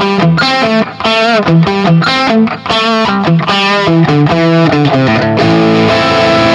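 Harley Benton Fusion II electric guitar on its bridge humbucker, played through an Axe-FX III Marshall Plexi amp model with overdrive. It plays a lead line of short picked phrases with bent notes, then a held chord rings out from about five and a half seconds in.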